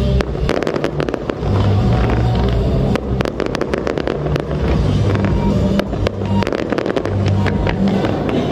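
Fireworks bursting and crackling in quick succession, with many sharp bangs, over music with a heavy bass line.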